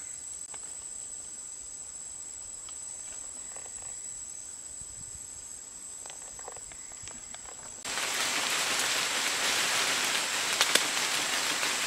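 Quiet forest background with a thin, steady high whine, then about two thirds in a sudden, loud, steady rustle of leaves and branches as a small fruit tree is shaken by its trunk, with a few sharp snaps or knocks.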